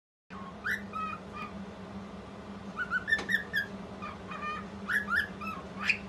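Female cockatiel singing: three short phrases of whistled, chirping notes, over a steady low hum.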